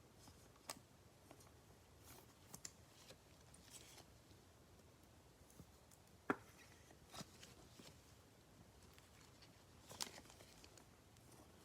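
Faint clicks, taps and light rustling of trading cards and packs being handled at close range, with a sharper click about six seconds in and another about ten seconds in.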